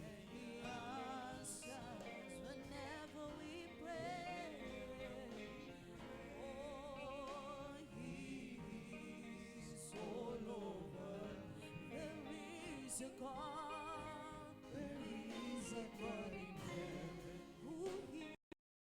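Gospel worship music with singing voices, the held notes wavering with vibrato; the sound drops out for a moment near the end.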